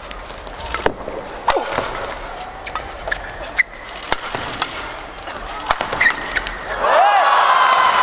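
Badminton rally: sharp racket hits on the shuttlecock and squeaking court shoes, with arena crowd noise underneath. About seven seconds in, as the point ends, the crowd bursts into loud cheering and applause.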